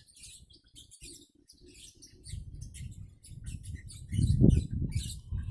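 Small birds chirping in quick, repeated short calls, over a low rumble that builds about two seconds in and swells loudest a little past the middle.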